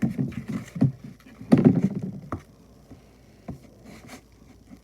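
Glue slime being mixed in a bowl: irregular wet squelches and clicks, two busy runs in the first half and a few single ones after.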